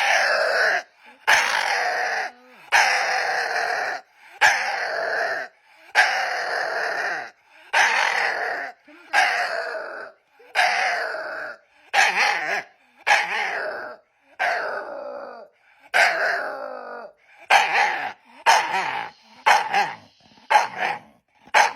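A dog giving a long run of strange, drawn-out barks, about twenty calls, each sliding down in pitch. They start about a second long and grow shorter and quicker toward the end.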